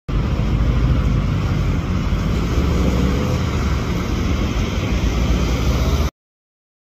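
Loud, steady low rumble of car engines and exhausts in slow street traffic. It cuts off suddenly about six seconds in.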